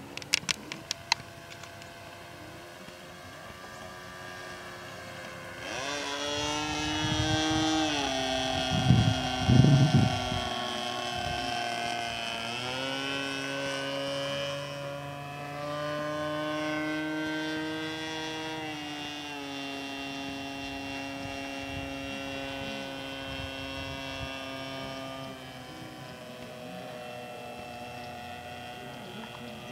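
RC model Extra 300S aerobatic plane's engine and propeller running in flight. The throttle opens up about six seconds in and the pitch rises and falls with the manoeuvres, then it throttles back near the end. A few sharp clicks come at the start, and there are some low thumps a few seconds after the throttle-up.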